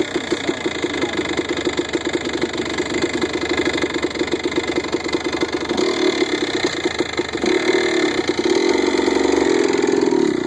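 Kawasaki KDX 200's single-cylinder two-stroke engine running at low revs with an uneven putter, picking up revs briefly about six seconds in and again from about eight seconds in.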